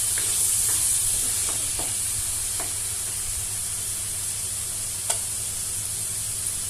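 Potato pieces sizzling steadily as they fry in oil in a pan, with a few light scrapes or taps of a spatula stirring them, one a little louder about five seconds in.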